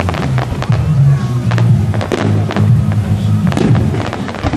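Fireworks display: a series of sharp firework bangs and crackles over loud music with a steady bass line.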